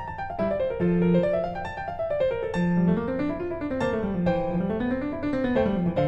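Piano music played in a steady flow of quick notes, with the lower and upper lines running up and down against each other.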